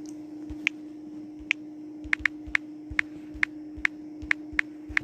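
Taps on a phone's on-screen keyboard, each giving a short sharp click, irregular and about two to three a second from under a second in, over a steady hum.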